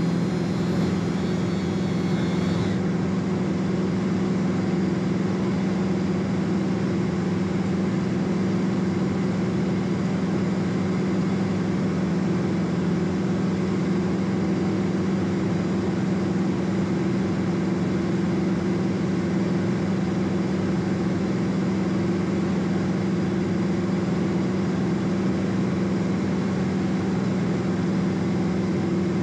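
Cessna P210 Centurion's turbocharged six-cylinder piston engine and propeller in steady flight, heard inside the cabin as a constant low drone with no change in pitch or level.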